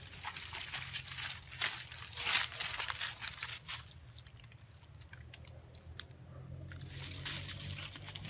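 Dry leaf litter crunching and rustling as a leafy plant is pulled up from the forest floor, a run of short crackles in the first few seconds that then thins out, with a faint steady low rumble underneath.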